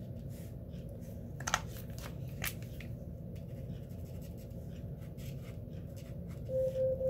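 Paint-marker tip scratching and dabbing on paper, with two sharp clicks about a second and a half and two and a half seconds in. Near the end a steady electronic tone starts: a smart-speaker timer going off.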